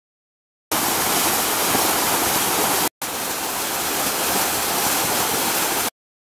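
Wall fountain water falling from a spout into a tiled basin, a steady splashing that starts abruptly about a second in, breaks off for a moment near three seconds, and cuts off suddenly shortly before the end.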